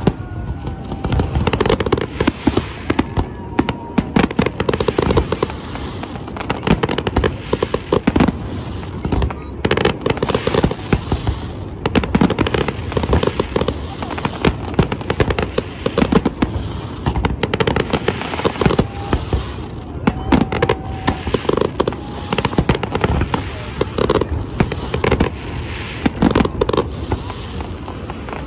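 Aerial fireworks display: shells bursting in a dense, irregular barrage of bangs, several a second, with no let-up.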